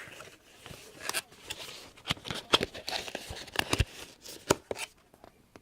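A cable being packed back into its cardboard retail box: a run of sharp clicks and taps with some crinkling of packaging, dying away near the end.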